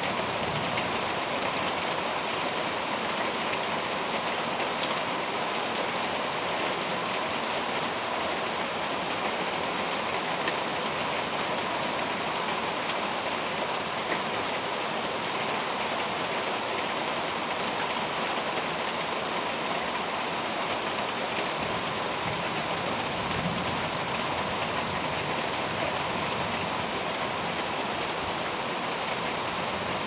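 Steady rain falling on the broad leaves and undergrowth of a tropical garden, an even, unbroken hiss.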